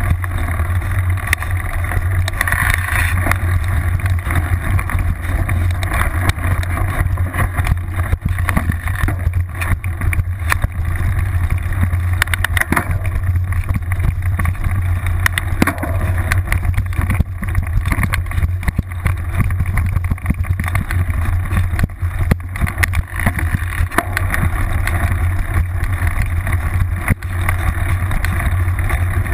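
Mountain bike riding over a rough dirt trail, heard from a camera clamped to the seat post: a steady low rumble with constant rattling and frequent knocks as the rear wheel runs over bumps.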